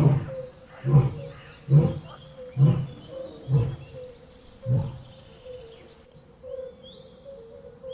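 Lion roaring bout tailing off in a series of six deep grunts about a second apart, spacing out slightly toward the end. About six seconds in, the grunts give way to birds chirping.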